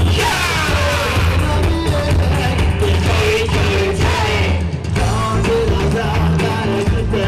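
Loud yosakoi dance music with a singing voice.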